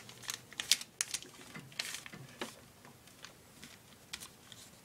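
Folded sheet of paper being handled and creased by hand against a wooden tabletop: a run of crisp crackles and light taps, thinning out after about two and a half seconds.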